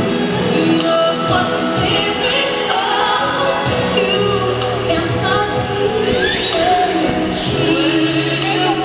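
Slow music with singing and choir-like voices, held notes and a gently moving melody.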